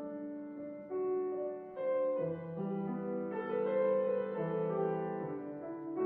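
Slow instrumental music with piano: a melody of held notes over lower sustained notes, changing about once a second.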